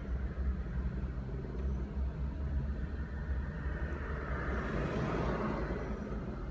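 A steady low rumble, with a broader rush that swells about four to five seconds in and fades near the end.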